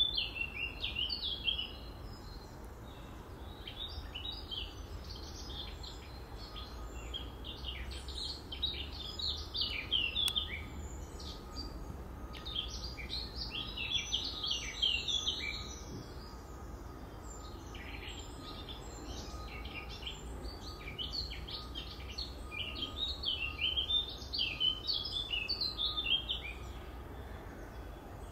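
Small songbirds chirping and singing in several bouts of quick, high, rapid notes, over a low steady background rumble.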